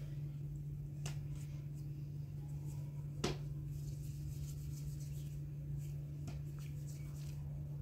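A few light clicks and taps, the sharpest about three seconds in, over a steady low hum.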